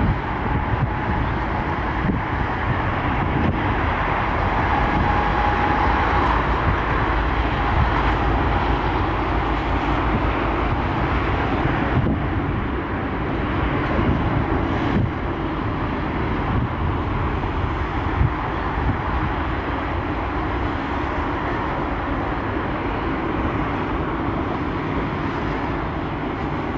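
Distant jet airliner engines running, a steady roar across the airfield with a faint high whine in the first several seconds.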